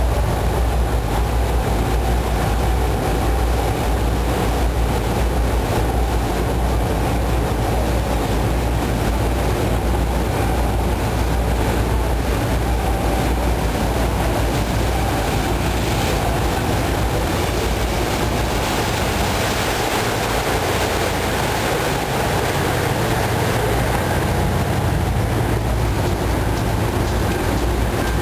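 Steady low engine rumble of a moving river cruise boat, heard from on deck, with a continuous rushing wash of wind and water over it.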